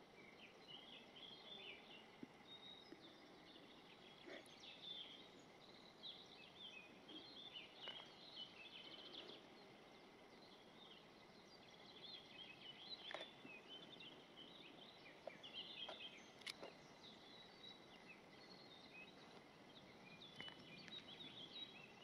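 Near silence: faint outdoor ambience with distant birds chirping in short irregular twitters, and a few faint ticks.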